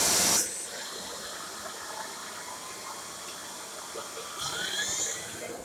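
Shark Lift-Away corded bagless vacuum cleaner running loudly, then switched off about half a second in. A quieter hiss follows, with a faint rising whine near the end.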